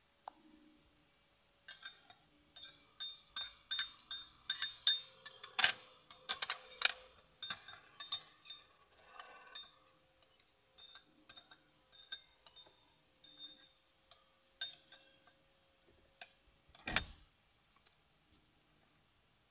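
Metal fork clinking and scraping against a ceramic bowl: a quick run of sharp clinks with a ringing note, thinning out after a few seconds. One dull thump near the end.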